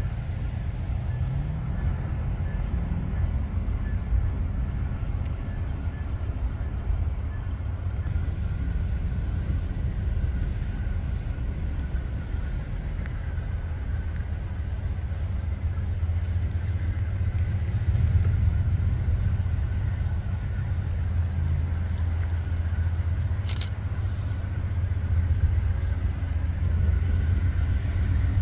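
A steady, low diesel-engine rumble that grows somewhat louder in the second half. One sharp click comes near the end.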